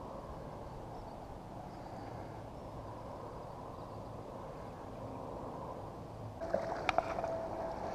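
Steady low wind and water noise around a fishing kayak. About six and a half seconds in, a steady thin tone starts, with a few sharp clicks just after.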